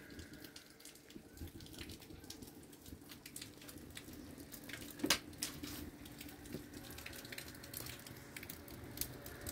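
Small wood fire crackling on an open floor hearth: scattered faint pops, with one louder snap about five seconds in.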